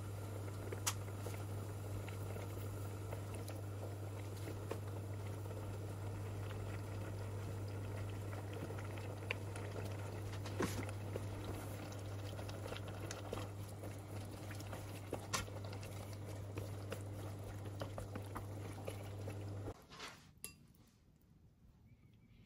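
Onions and beef simmering and bubbling in soy-based broth in a metal pan on an induction hob, over the hob's steady low hum, with light clicks of chopsticks against the pan. The bubbling and the hum stop suddenly about twenty seconds in, leaving only a few faint clicks.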